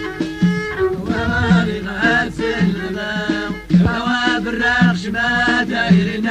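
Amazigh folk song from the Middle Atlas: voices singing a melodic line over a low, repeating beat.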